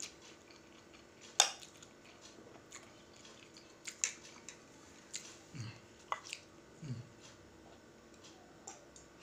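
Eating sounds: a spoon clinking against a plate of fried instant noodles every second or two, the loudest clink about a second and a half in, with soft chewing between.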